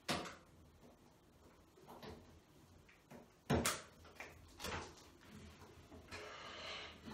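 Wet slaps and knocks as pink Angel Delight and cake batter are scooped from a bowl and smeared over the head and body: a sharp knock right at the start, the loudest slaps about halfway, and another a second later. Heavy breathing near the end.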